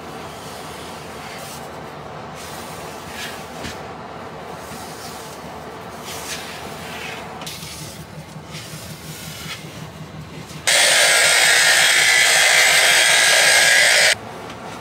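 A random orbital sander running flat on a glossy, freshly finished padauk slab, a loud even hiss that starts abruptly about ten and a half seconds in and cuts off about three and a half seconds later. Before it there is only a steady background with a few faint swishes from finish being brushed along the slab's edge.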